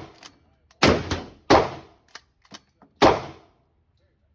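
Gunshots at a shooting range: a quick string of three shots in the first second and a half, then one more about three seconds in, each with a short echoing tail.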